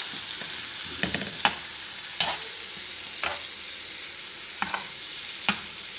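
Kachnar (butterfly) flower buds sizzling as they are lightly fried in a couple of tablespoons of oil in an aluminium pan. A metal spoon stirs them, scraping and clicking against the pan about every second.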